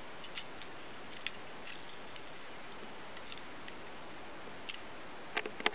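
Scattered light clicks and ticks from a 1:10 scale model Stirling's twin tail wheel retract and steering linkage, small metal horns, springs and wire being worked by hand, over a steady faint hiss. A few sharper clicks come together near the end.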